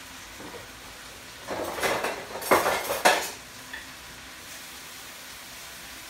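Vegetables sizzling in a frying pan, with a clatter of pots and utensils for about two seconds starting about a second and a half in, including two sharp clanks.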